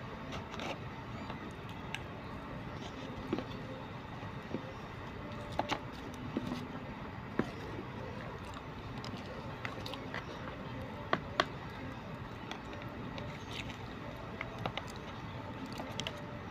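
Eating sounds: a plastic spoon clicking and scraping against a plastic food container as rice is scooped, with some chewing, over a steady background rumble. The clicks come singly every second or two.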